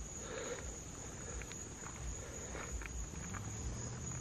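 A steady high trill from a chorus of night insects, with soft footsteps about twice a second. A low hum comes in near the end.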